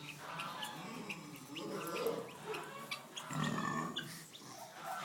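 Pigs snoring in their sleep: several irregular snores, the loudest about three and a half seconds in.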